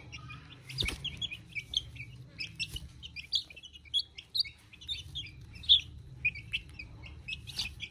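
A group of young Aseel chicks peeping: many short, high chirps, one after another, with a soft knock about a second in.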